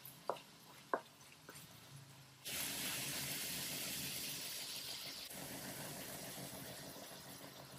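Ground beef frying in a stainless-steel wok: two sharp knocks of the wooden spatula on the pan in the first second, then about two and a half seconds in the sizzling jumps suddenly louder and keeps up as a steady hiss.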